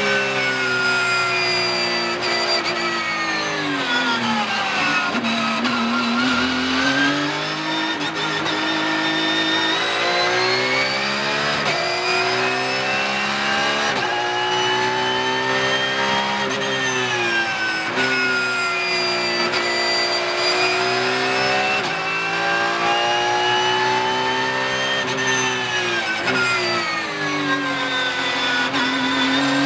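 Porsche 911 GT3 Cup (992) race car's 4.0-litre flat-six engine at racing speed, heard from inside the cockpit. Its pitch falls steeply as the car brakes and climbs in steps through gear changes, dropping and rising again several times.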